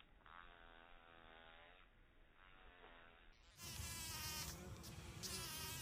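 Bee buzzing at a flower. For the first three and a half seconds the buzz is slowed down by slow-motion playback, low and faint, wavering in pitch; then it jumps to normal speed and becomes louder and higher.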